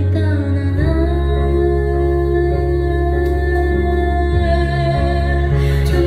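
A woman singing live into a microphone over instrumental accompaniment.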